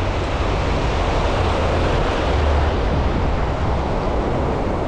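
Ocean surf washing on the beach with wind buffeting the microphone, a steady rushing noise with a heavy low rumble.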